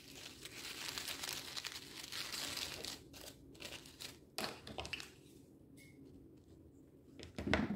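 Paper coffee filter rustled and crinkled in the hands as it is squeezed and shaped, steady for the first few seconds and then quieter and sparser. A short knock near the end.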